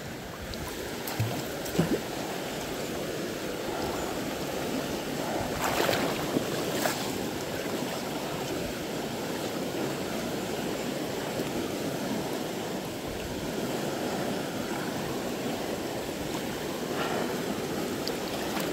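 Steady rush of moving water, with a few sharp clicks or knocks near the start and around six seconds in.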